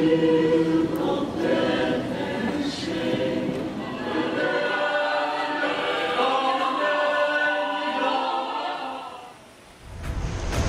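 Mixed choir of men's and women's voices singing in harmony, fading out near the end. In the last second a loud noisy rush takes over.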